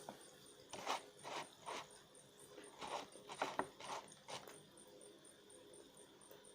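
Close-miked eating sounds of instant noodles: a run of short, wet chewing noises, about nine in the first four and a half seconds, then quieter.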